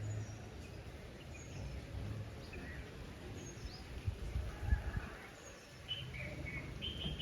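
Birds chirping, scattered short high calls, over a low rumbling background noise with a few low thumps about four to five seconds in.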